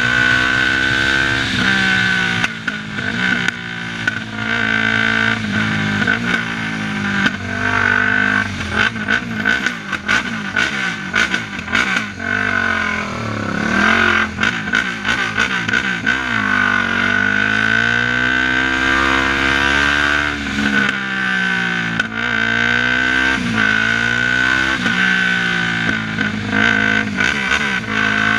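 Yamaha sport quad's single-cylinder four-stroke engine under way, its pitch climbing and dropping again and again as it accelerates and shifts through the gears, with a steady high whine and rushing noise over it.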